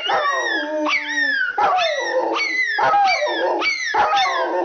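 A Rottweiler and a Pomeranian howling together: a quick run of short, overlapping howls and yelps, each falling in pitch, about two a second.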